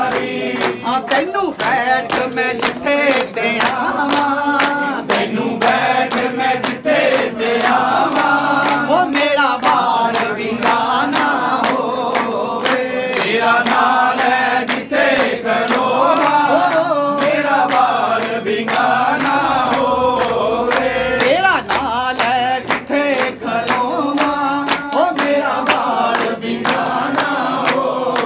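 A group of voices singing a devotional bhajan together in chant style, over a fast run of sharp percussive beats, like clapping or struck percussion keeping time.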